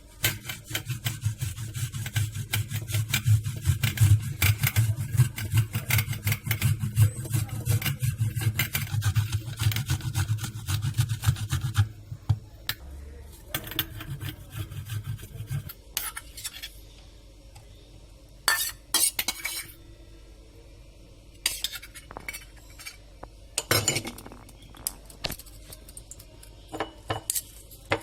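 Fresh ginger grated on a metal grater: rapid scraping strokes for about twelve seconds, then scattered clinks and taps of kitchen utensils.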